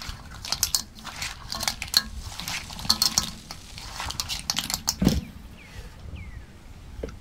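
Hands mixing shell-on clams and shrimp in a steel wok: shells clicking and clinking against the metal pan in quick irregular bursts, with a dull thump about five seconds in.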